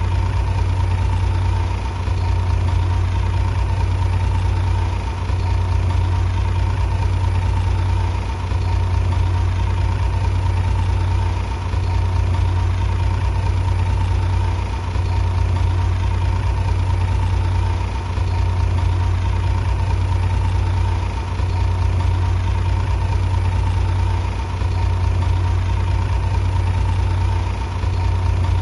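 Shantui bulldozer's diesel engine running steadily with a deep, even hum and a slight dip in loudness about every three seconds.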